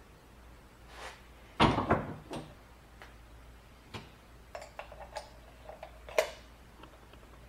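Parts of a heavy-equipment battery master switch being handled on a bench: a sharp knock about a second and a half in, then a run of light clicks and taps.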